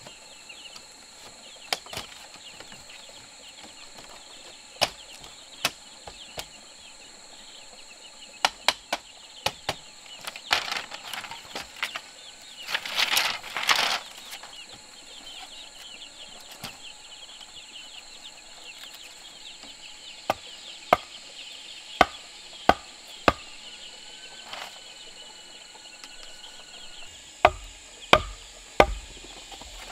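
Irregular sharp knocks of something striking wood, with a louder rustling, scraping stretch about halfway through and a run of about five evenly spaced knocks a little past the middle, over a steady high insect drone.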